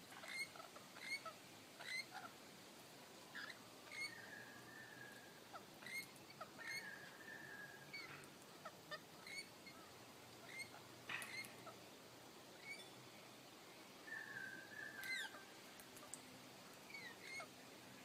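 Birds chirping and squeaking, with short high chirps about once a second and a few longer, drawn-out calls.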